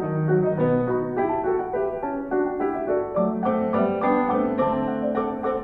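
Background piano music: a steady, unbroken run of single notes and chords.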